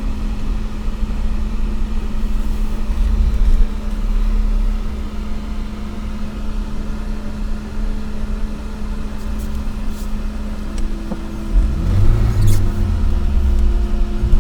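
An off-road vehicle's engine running with a steady hum and a low rumble. It grows louder near the end, when a second, higher hum joins in.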